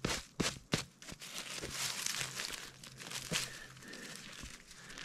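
Dry pine needles and loose soil crackling and rustling under a gloved hand as a spring king bolete is dug around and pulled from the ground. Several sharp crackles come first, then a steady rustle that fades after about three seconds.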